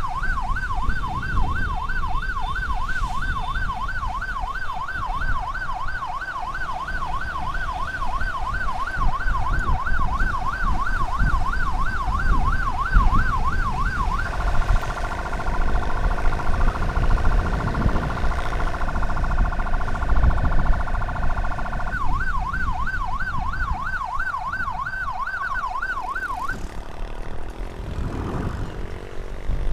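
Electronic emergency siren in a rapid yelp, quickly sweeping up and down. About halfway through it switches to a steady multi-note horn tone for several seconds, then goes back to the yelp and stops a few seconds before the end. Road and engine rumble from the moving vehicle runs underneath.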